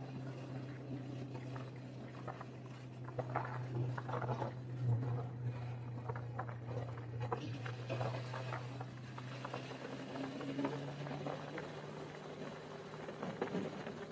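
Motorcycle engine running with a steady low hum while riding, with scattered clicks and knocks over it. The hum shifts slightly about eleven seconds in.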